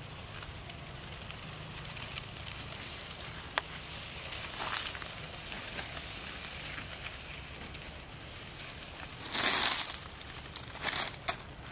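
Dry fallen leaves rustling and crackling, with a few louder crunches, the loudest about nine and a half seconds in, over a low steady hum.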